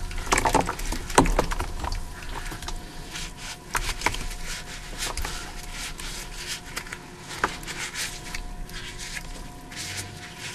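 Wet black gym chalk being squeezed and kneaded in water by nitrile-gloved hands: squelching and crackling, with splashing that is loudest in the first two seconds.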